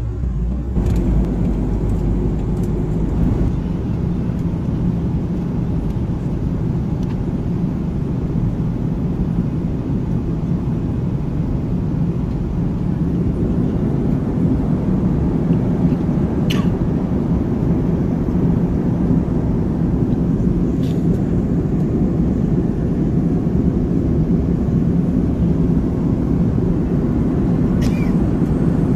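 Steady low roar of an airliner's passenger cabin at cruise altitude: engine and airflow noise heard from inside, with a few faint clicks.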